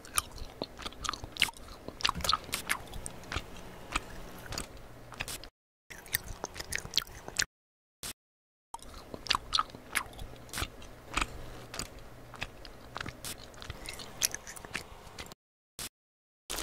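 Close-miked eating sounds of gummy candy being bitten and chewed: a dense run of sticky, wet clicks. They come in edited stretches cut by short dead silences, twice in the middle and once near the end.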